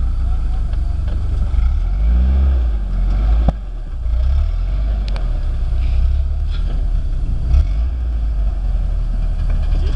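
Lifted pickup truck's engine running under load and revving as the truck crawls up a rock ledge, with a sharp knock about three and a half seconds in and a smaller one later.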